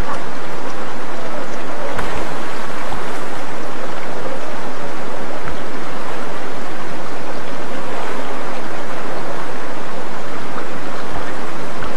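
River water rushing loudly and steadily, with a few dull low bumps.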